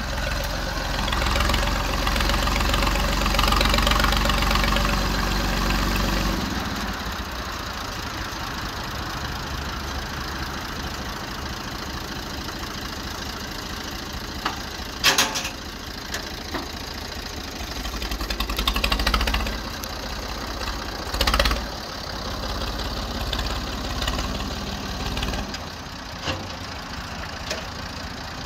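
Hanomag R324 tractor's diesel engine working as its front loader pushes manure. It runs harder and louder for the first six seconds and again around eighteen to twenty seconds, and settles to a lower, steady run in between. Two sharp clanks come at about fifteen and twenty-one seconds.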